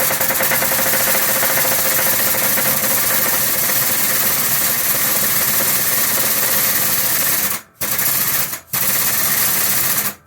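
Air-powered hydraulic jack of a 20-ton shop press pumping under load, a fast steady chatter with a strong hiss of air, as it drives a needle roller bearing out of a lathe clutch basket. It cuts out briefly three times near the end.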